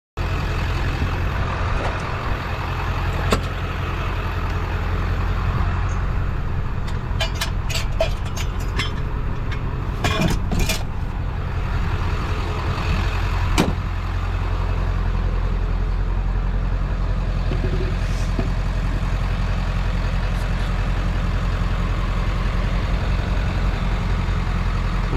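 Truck engine running steadily, a low drone, with a cluster of sharp clicks and rattles about halfway through and a single knock a few seconds later.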